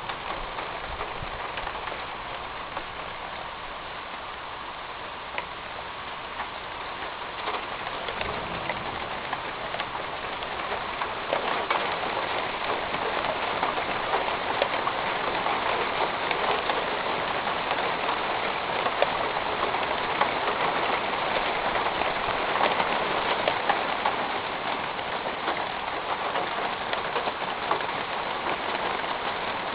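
Rain falling on a metal roof during a thunderstorm: a dense, steady patter of countless drops that grows heavier about a third of the way in.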